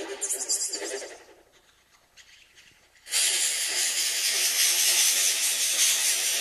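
DIY STM32F4-based digital experimental synthesizer (the Dekrispator) generating random patches on its own. One strange electronic sound dies away about a second in, and after a short near-quiet gap a loud, dense hissing noise-like patch starts about three seconds in.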